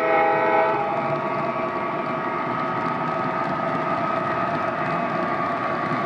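O-gauge model freight cars rolling past on three-rail track with a steady rumble. A model locomotive's horn sounds for about the first second, then cuts off.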